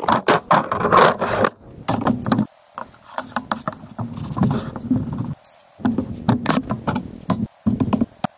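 Clamps clattering and wooden boards knocking and scraping on a workbench as they are handled, laid down and stacked; a string of short knocks and clicks with sliding scrapes between.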